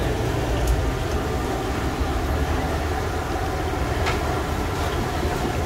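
Steady low rumble of outdoor street-market ambience, with a couple of short sharp clicks, the clearest about four seconds in.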